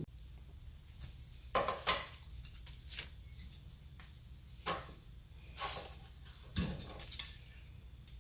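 Light metallic clinks and clatter, a handful of separate knocks, as oil-soaked clutch plates and parts are handled.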